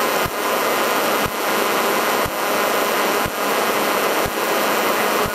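Cabin noise inside an off-road race truck under way: steady engine, wind and tyre noise. A faint regular tick sounds about once a second.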